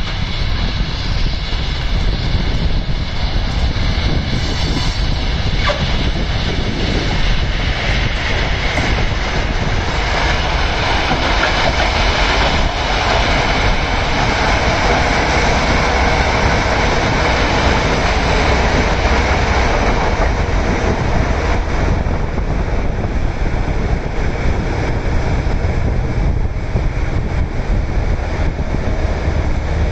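Ballast regulator at work on the track: its engine running under load while its ploughs and sweeper shape and sweep the crushed-stone ballast, a loud, steady grinding rush. It grows fuller about midway as the machine passes close, then eases as it moves away.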